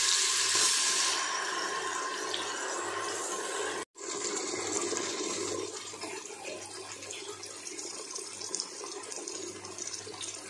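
Ginger-garlic paste sizzling in hot oil and ghee in a pressure cooker. It is loudest just after it goes in, then settles to a softer, steady frying hiss, broken off briefly about four seconds in.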